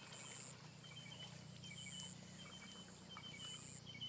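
Faint outdoor ambience: small birds chirping in quick short notes, and a short high buzz, likely an insect, repeating about every one and a half to two seconds, over a low steady hum.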